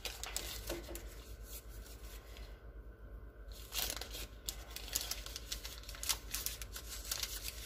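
Paper wrapper of a stick of butter crinkling and tearing as it is peeled back, in irregular crackles with a short quieter pause about three seconds in.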